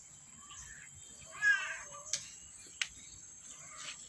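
A single short wavering animal call about a second and a half in, over a steady high-pitched whine and a couple of faint clicks.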